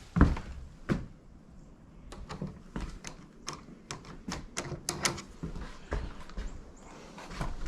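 Irregular run of light, sharp metallic clicks and taps from working on a lock cylinder, about twenty in all and thickest from about two to five seconds in.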